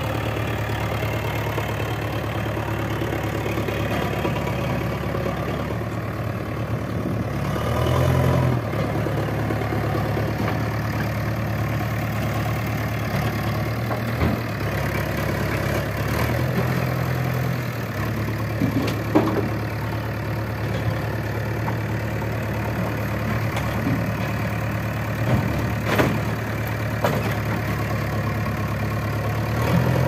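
JCB 3DX backhoe loader's diesel engine running steadily, revving up briefly twice as it works, with a few short knocks.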